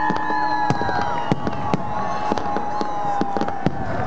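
Fireworks salute: rapid, irregular bangs of shells bursting, over long steady whistling tones that fade out about a second in.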